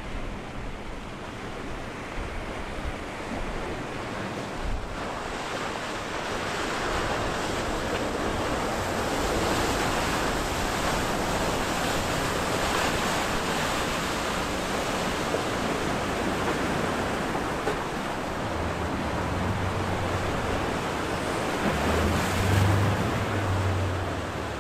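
Rushing surf and wake wash from a large sportfishing yacht running in through an inlet, a steady hiss of water that swells as the bow spray nears. Near the end, the low hum of the yacht's engines comes through as it passes close.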